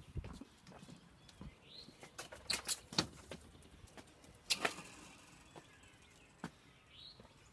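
Footsteps and scattered knocks and clatters of someone walking into a house, loudest a few seconds in, with two short high squeaks.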